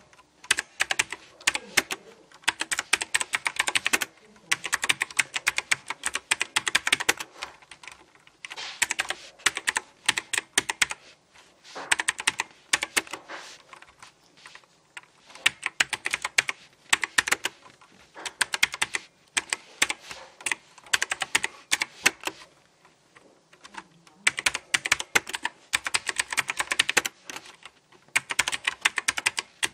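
Fast typing on a Pro X mechanical keyboard with clicky blue switches: rapid runs of crisp key clicks lasting a few seconds each, broken by short pauses.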